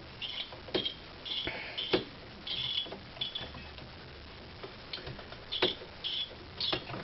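Mounting screws of an aftermarket CPU heat sink being driven in with a screwdriver: irregular small clicks and short scratchy rasps.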